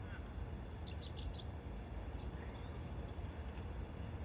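Ambience of faint high-pitched chirping, with a quick cluster of chirps about a second in and scattered single chirps after, over a low steady background rumble.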